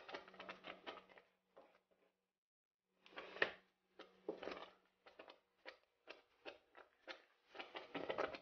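Faint, irregular patter of small pops and taps from rice boiling in a stainless steel pot, with a wooden spoon stirring the rice a few seconds in.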